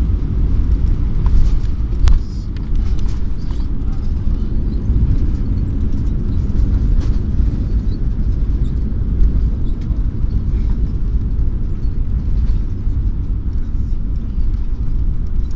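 Airbus A321 cabin noise while the airliner rolls along the runway and taxiway after landing: a steady low rumble from the engines and the wheels on the pavement, with a sharp knock about two seconds in.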